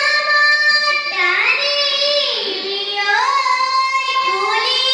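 A young girl singing a Bihu song alone, in a high voice, holding long notes that slide up and down between pitches.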